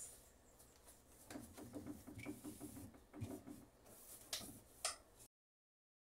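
Faint rubbing and light squeaks of a cloth wiping the plastic inside of a refrigerator, with a couple of small clicks near the end before the sound cuts off suddenly.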